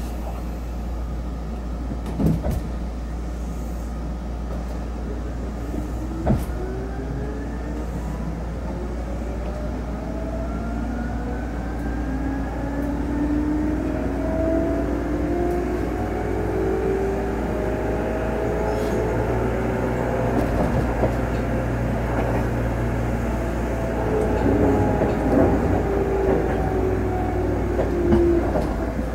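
Seibu 10000-series electric train pulling away from a stop, heard from inside the car: a steady low hum under a motor and gear whine whose pitch rises slowly as the train gathers speed. Two short knocks come in the first few seconds.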